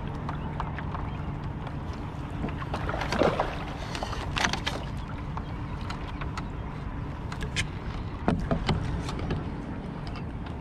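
Water lapping against a kayak hull under a steady low rush of wind on the microphone, with a few sharp knocks and taps scattered through.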